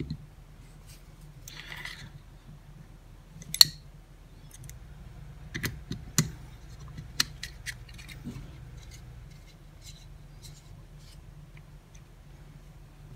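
Light clicks and taps of small metal tools and pistol parts being handled while G10 grip panels are fitted onto a Springfield Armory 911 frame. A short rustle comes about a second and a half in, a sharp click at about three and a half seconds, and scattered lighter clicks around six to seven seconds.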